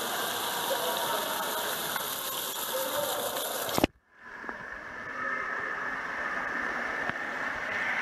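Water pouring and splashing from a splash-pad fountain pillar close by, a steady hiss. Just before halfway it cuts off with a click, and after a moment of near silence a quieter, more distant hiss of running water takes over.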